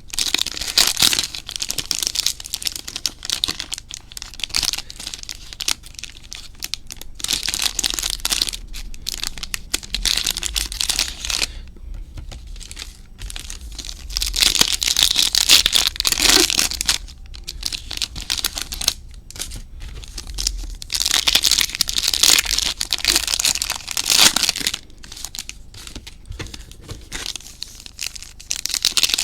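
Trading card pack wrappers being torn open and crinkled by hand, with irregular rustling and several louder stretches of tearing.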